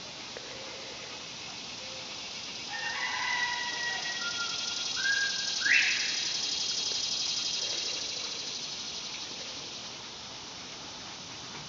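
A rooster crows about three seconds in. Then a northern bobwhite quail gives its whistled "bob-white" call, short notes ending in a sharp rising whistle, about six seconds in. A high cicada buzz swells and fades through the middle.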